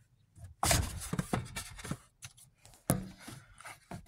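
Rustling and light knocks of handling noise as the phone is moved about under the truck's dashboard, with one sharper knock about three seconds in.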